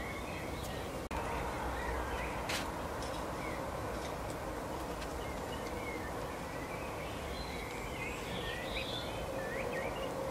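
Small songbirds chirping and twittering in short calls, busier near the end, over a steady background of low rumble and hiss. The sound drops out briefly about a second in.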